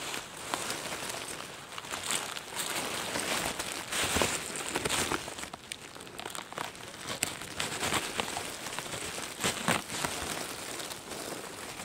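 Close rustling and crackling of leaf litter, twigs and soil as hands and a pocket knife work a boletus mushroom loose and lift it out of the forest floor. It is irregular, with sharper crackles about four seconds in and again around nine to ten seconds.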